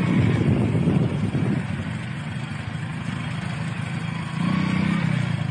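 Motorcycle engines running at low road speed. The sound is louder for the first second and a half, quieter through the middle, and swells again briefly near the end.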